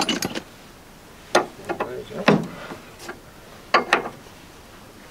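Hand tools clinking and knocking on the metal of a Land Rover's steering linkage as a ball-joint nut is worked off: a handful of separate sharp metallic knocks, the loudest a little over two seconds in and two close together near four seconds.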